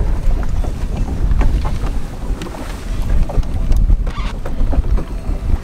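Wind buffeting the microphone in a heavy, uneven rumble over open water, with scattered light knocks as a fish is netted beside the boat.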